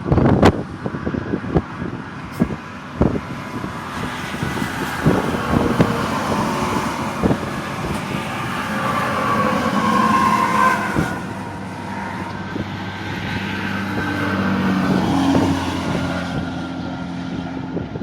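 A truck driving, heard from inside the cab: engine and road noise, with many sharp knocks and rattles in the first half and the engine tone rising and falling later on.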